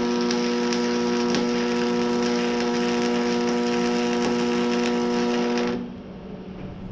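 Electric arc welder running a bead: a steady electrical buzz with a crackling hiss from the arc, cutting off about six seconds in.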